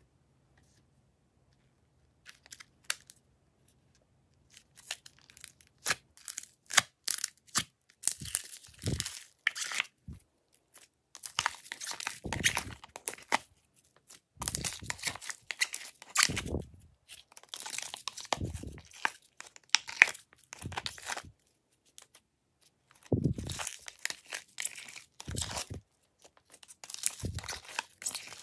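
Hands working slime: sticky crackling and tearing sounds in repeated bursts as slime is pulled and pressed, with the crinkle of a thin plastic tub as glitter slime is pushed out of it. The sounds start about two seconds in.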